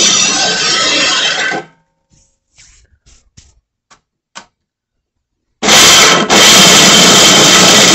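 Electric grain mill grinding whole corn: a loud, harsh, steady grinding noise that starts abruptly about five and a half seconds in, with a brief dip just after it starts. Before it, an earlier loud steady sound stops abruptly about a second and a half in, followed by a few light clicks.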